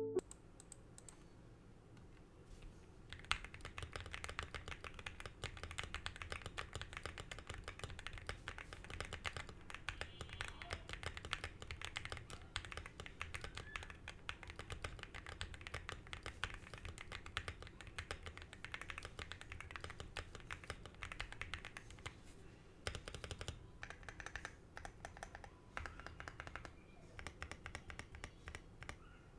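Fast typing on a WOBKEY Zen65 gasket-mounted 65% mechanical keyboard: a dense run of keystrokes, thocky and deep, getting going about three seconds in, with a couple of short pauses near the end.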